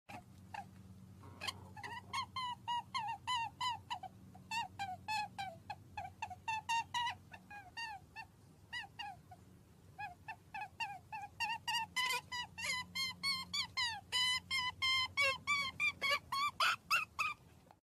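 Rabbit calls: rapid short squeaks, about four a second, broken by a pause about halfway through.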